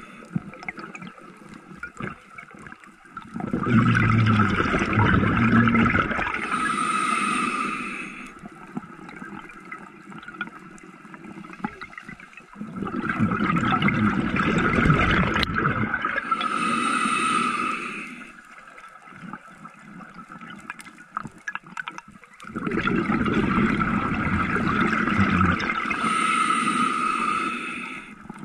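A scuba diver breathing through an open-circuit regulator underwater. There are three long exhalations, each a loud rush of bubbles lasting about five seconds. Between them are quieter stretches as the diver inhales.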